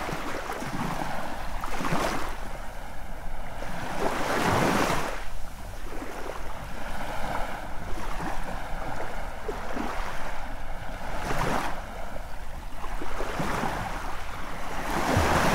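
Sea waves breaking and washing up onto a sandy shore, the wash swelling and falling back every two to four seconds.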